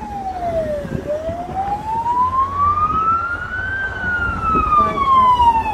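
Emergency rescue truck's siren sounding a slow wail: its pitch falls, climbs for about three seconds, then falls again, growing louder as the truck comes closer, over a low rumble of road traffic.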